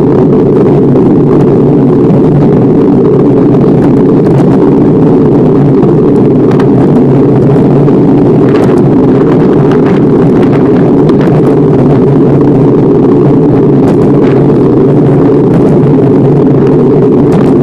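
Loud, steady rumble heard while riding a bike along a paved road, with a few faint clicks.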